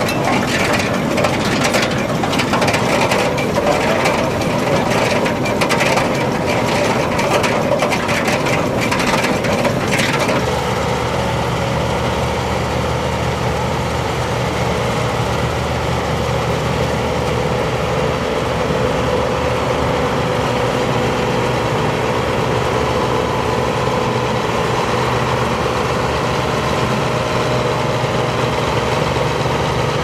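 New Holland 8060 combine harvester cutting barley. For the first ten seconds there is a dense rattling clatter from the header's knife, reel and auger close by. Then it settles into a steady engine drone with a constant whine.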